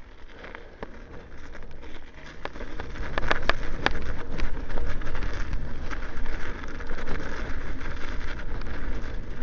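Electric bike riding over snow: a steady rush of tyre and wind noise with scattered clicks. It grows louder over the first three seconds, then holds steady.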